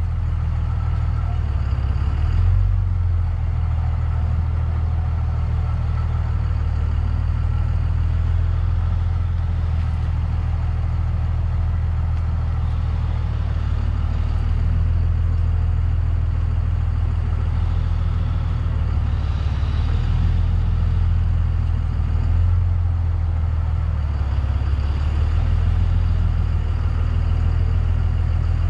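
Cummins diesel engine of a Dodge 5500 flatbed truck, running steadily with a low, even drone.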